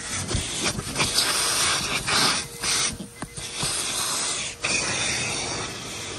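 Vacuum cleaner running, its hose nozzle drawn over car floor carpet: a steady rush of air with a faint motor whine, dropping briefly several times as the nozzle is moved, pressed or lifted.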